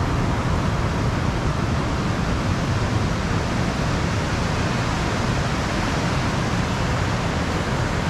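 Ocean surf breaking on the shore, a steady rushing noise with no pauses between waves.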